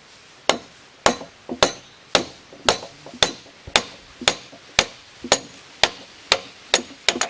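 Hammer striking metal parts of a cast-iron drill press, steady blows about twice a second with a short metallic ring after each, to knock a part loose from its shaft.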